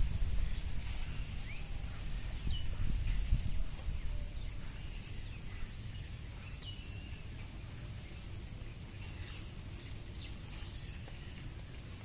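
Outdoor field ambience: wind rumbling on the microphone for the first few seconds, a steady high-pitched insect drone, and two short downward-sweeping bird chirps a few seconds apart.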